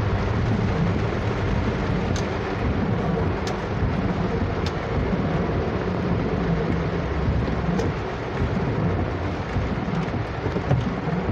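Heavy rain falling on a car's roof and windscreen, heard from inside the cabin as a steady hiss over the low hum of the car's engine, with a few sharp ticks of single drops.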